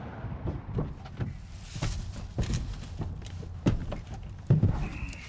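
A man climbing up into a truck cab: a series of shuffling steps, knocks and thumps as he hauls himself onto the seat, the loudest about two thirds of the way through, over a steady low hum.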